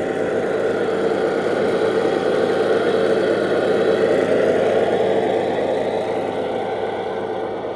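Radio-controlled Tamiya 3348 dump truck driving, its drivetrain running steadily; it grows a little louder around the middle and eases off toward the end.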